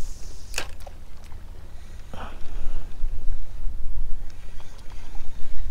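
Wind buffeting the microphone, a low rumble that grows stronger about three seconds in, with a sharp click about half a second in and a softer one a couple of seconds in.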